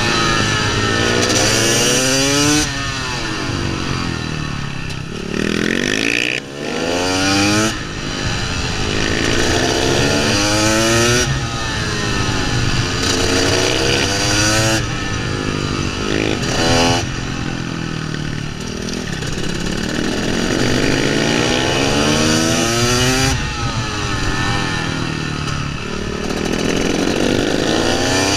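KTM 300 two-stroke motorcycle engine at racing speed, revving up through the gears and dropping back again and again as the throttle is opened and shut for each corner, with a short throttle-off lull about six seconds in. Wind rushes over the microphone throughout.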